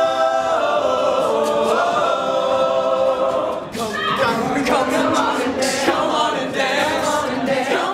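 Men's a cappella group singing in close harmony. They hold chords for the first few seconds, then break into a choppier, more rhythmic passage from about four seconds in.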